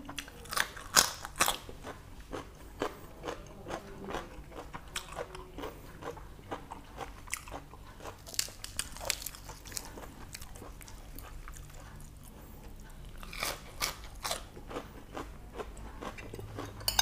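Close-up chewing of boiled pork intestines eaten with fresh lettuce: irregular wet mouth clicks and crunchy bites, with denser bursts of crunching about a second in, around the middle, and again past two-thirds of the way through.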